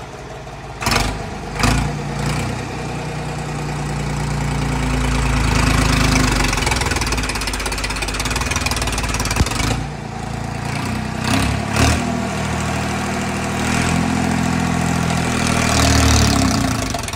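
Ford 3600 tractor's three-cylinder engine revving hard under load in third gear as the tractor strains to climb onto bricks placed under its tyres. The engine note rises and falls, with a few sudden louder bursts near the start and again around ten to twelve seconds in.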